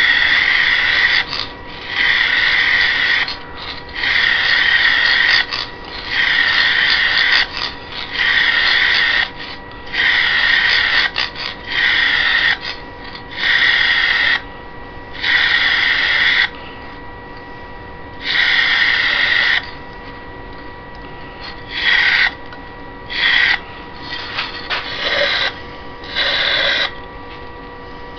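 Aerosol can of ebonizing lacquer spraying in repeated hissing bursts, most about a second long, each with a short gap before the next. Later the bursts come shorter and further apart.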